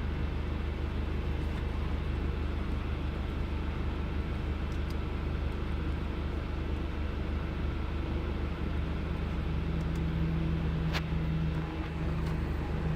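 Car engine idling with a misfire, a steady low running sound with fine rapid pulsing. There is a single sharp click about eleven seconds in.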